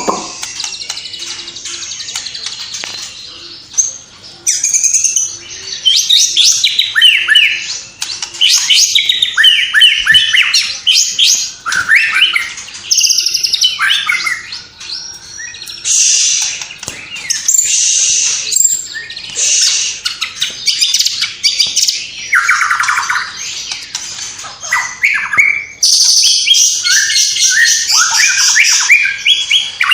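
White-rumped shama singing a loud, varied song: phrase after phrase of rapid chirps, trills and sweeping whistles with short pauses between them.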